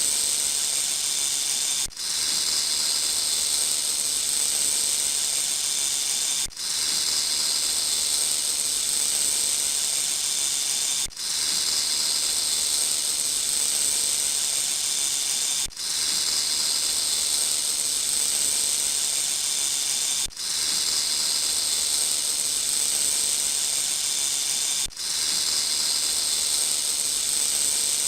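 Snake hissing: long, steady, high-pitched hisses about four and a half seconds each, with a brief break between them, repeating evenly.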